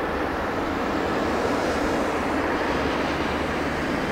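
Boeing 747-400 freighter's jet engines giving a steady, even rushing noise as the airliner rolls out on the runway just after landing.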